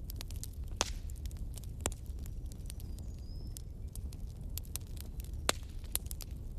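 Wood fire crackling in a fireplace: irregular sharp pops and snaps, the loudest about a second in, near two seconds and about five and a half seconds in, over a steady low rumble.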